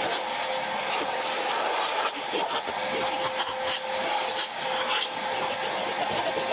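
Vacuum cleaner running with a steady whine, with many short clicks and scrapes on top.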